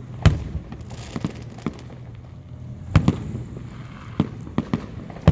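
Fireworks bursting: two loud booms, about a third of a second in and again about three seconds in, with smaller pops scattered between and after.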